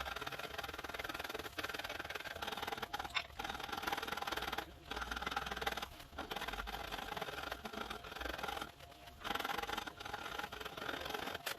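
A hand file or rasp scraping over a hickory axe handle as it is shaped, in long rasping strokes with short pauses between them.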